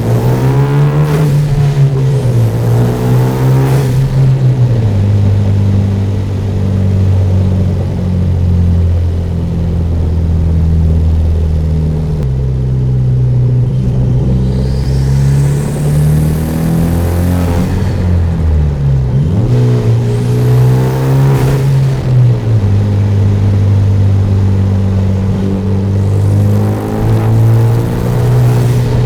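Turbocharged Hyundai Genesis Coupe's engine and aftermarket free-flow exhaust on the road. It drones at a steady cruise between several pulls where the engine note climbs and then drops back as the driver accelerates and shifts gears. Midway, a faint high whistle rises with one of the pulls.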